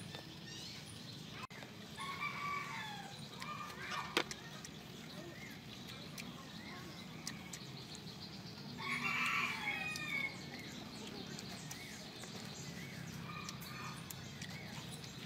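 Rooster crowing twice, a couple of seconds in and again past the middle, louder the second time, over a low steady hum.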